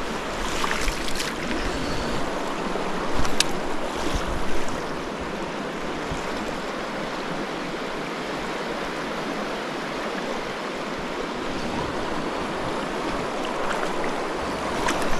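Flowing river water, a steady rushing noise, with a few short sharp sounds in the first five seconds.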